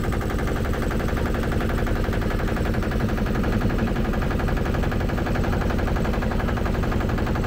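Motorboat engine running steadily, with a fast, even chugging beat.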